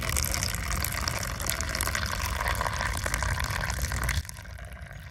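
Hot, freshly boiled milky coffee poured from a steel bowl into a plastic cup, a steady splashing stream that stops about four seconds in.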